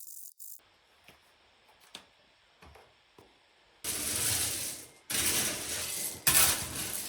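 Shovel working the slab's base: a few faint clicks, then from about four seconds in several gritty scraping strokes about a second each as the shovel digs and moves the base material.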